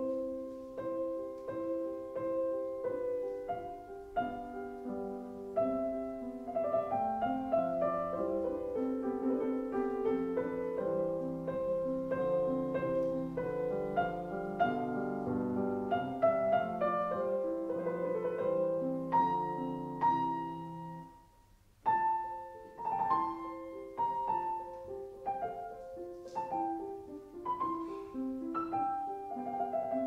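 Background piano music, many notes and chords played in succession; it breaks off briefly about three-quarters of the way through and then starts again.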